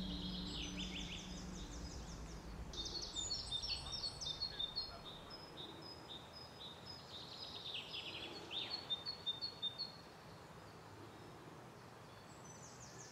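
Woodland songbirds singing: a busy run of short high chirps, trills and repeated notes over a faint steady hiss, with a lull near the end before a few more notes.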